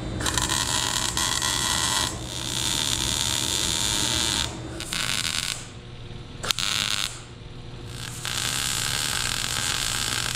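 Welding eighth-inch steel gusset plates onto a car's frame rail: the arc buzzes and crackles in several runs of a few seconds each, stopping and starting again, with a sharp click about six and a half seconds in.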